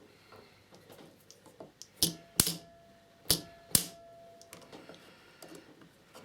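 Spot welder firing to weld a connection strip onto 18650 lithium cells through copper-wire electrodes: four sharp cracks in two close pairs, about two and three and a half seconds in, with a faint steady tone under them.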